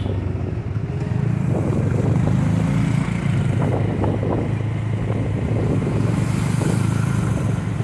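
Motorcycle engine running steadily on the road, a continuous low rumble.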